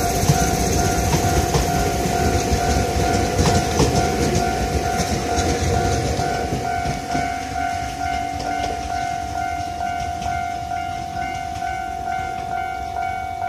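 Two-car Ohmi Railway 100 series electric train pulling out along the platform, its rumble and wheel clatter fading as it leaves. Under it, a railway level-crossing alarm rings on in steady, evenly repeated electronic tones.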